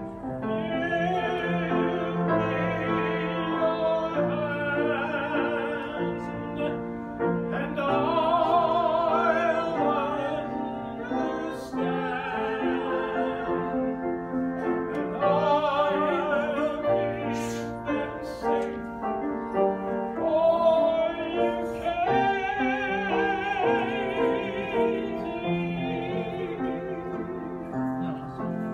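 A woman singing in a classical, operatic style with wide vibrato, in phrases of a few seconds, accompanied by a grand piano.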